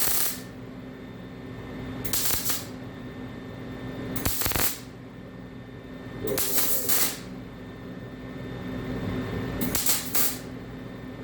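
Lincoln MIG welder laying short welds on steel tubing: four brief crackling, hissing bursts, each under a second, about every two to three seconds, over a steady machine hum.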